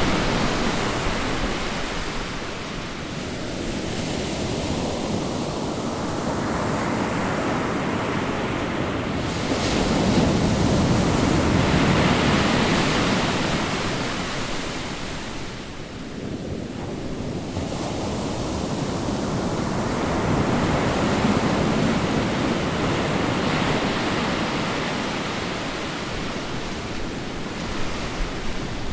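Ocean waves breaking and washing in a continuous surf, swelling and easing with louder surges roughly every ten seconds.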